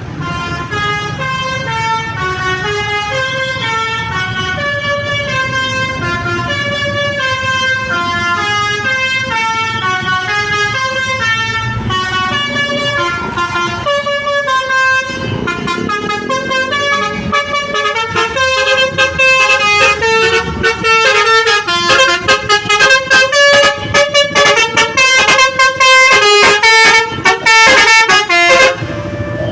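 Basuri V3 telolet horn, a multi-tone vehicle horn, playing a tune of quick stepped notes. About two-thirds of the way through it gets louder and the notes turn short and choppy, then it stops abruptly near the end.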